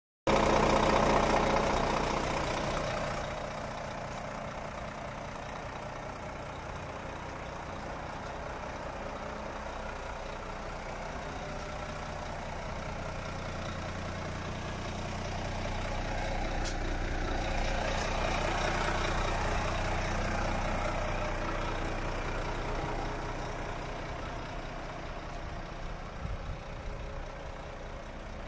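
Renault T 460 truck's 11-litre six-cylinder diesel idling steadily. It is loudest in the first few seconds, swells again a little past the middle, and is softer near the end.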